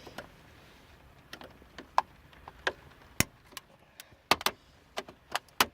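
Hand tools working on metal parts inside a 1998 Jimmy's steering column: a string of about a dozen sharp, irregular clicks and taps, the loudest coming near the end.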